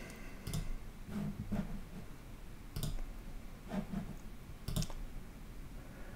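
Computer mouse clicking: about seven faint, short clicks at irregular intervals.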